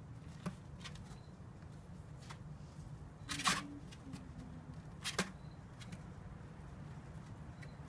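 A puppy's paws scratching and shuffling on the floor of a cardboard box as it gets up and moves about, with two louder scrapes about three and a half and five seconds in, over a low steady hum.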